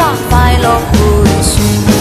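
Background pop music: a Chinese-language song with singing over a drum beat.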